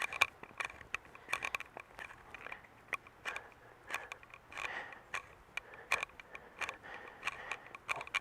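The sharp-edged rounded hammer end of a Victorinox Venture knife gouging out the bowl of a wooden spoon: a string of short, irregular scrapes and clicks, with a few longer scraping strokes.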